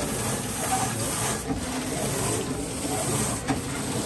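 Airport luggage-wrapping machine running: its turntable spins a hard-shell suitcase while plastic stretch film pulls off the roll and rubs around it, a steady noisy rush with a faint low hum.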